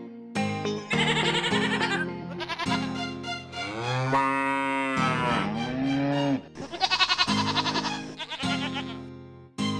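Background music with farm-animal call sound effects laid over it: a long call about four seconds in that rises and then falls in pitch, then a quavering call around seven seconds.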